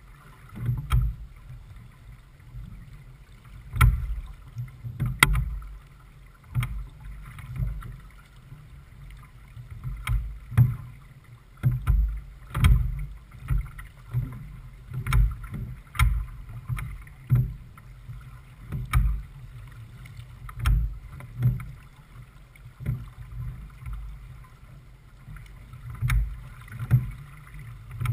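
J/24 sailboat moving through choppy water under sail: irregular low thumps and surges of water against the hull, about one every second or two, over a steady rush of wind and water.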